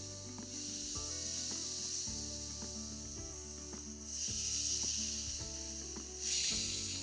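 Carbon dioxide hissing out of a swing-top bottle of home-fermented tepache as the cap is eased open, with stronger surges about four and six seconds in: the drink is heavily carbonated. Background music plays underneath.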